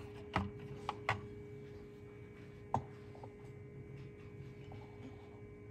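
Light clicks and taps from eggs being handled in an egg incubator, four in all, the sharpest just under three seconds in, over a steady faint hum.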